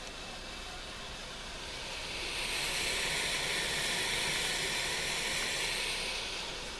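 Hooded hair steamer running, a steady hiss of steam that grows louder about two seconds in and eases off near the end.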